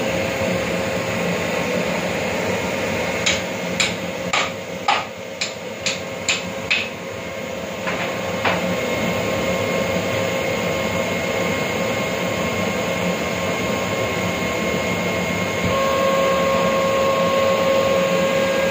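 11 kW screw air compressor running with a steady drone. A few seconds in, a quick run of about seven sharp knocks comes at roughly two a second, with two more soon after. Near the end the tone of the running machine shifts and it gets slightly louder.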